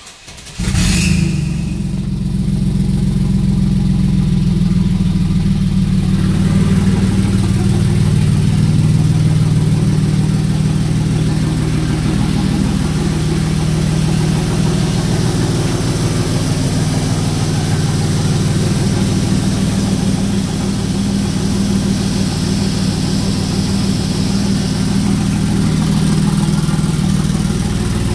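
2003 Chevrolet S10's 4.3-litre V6 starting: a brief crank, then it catches within about a second, flares up briefly and settles into a steady idle.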